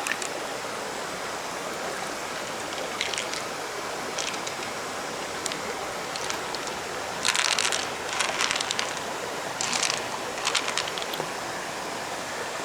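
Stream water rushing steadily, with a few short splashes, most of them between about seven and eleven seconds in.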